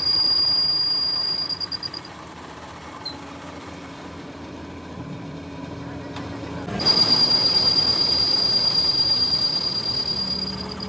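Steady high-pitched squeal of a metal-cutting tool against a spinning steel workpiece on a lathe. The squeal fades out pulsing about two seconds in, and after a quieter spell it cuts back in loudly near the seven-second mark.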